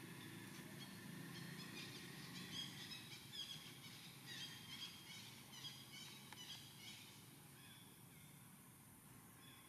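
Faint bird chirping over quiet outdoor ambience: a run of short, high chirps from about a second and a half in that dies away after about seven seconds.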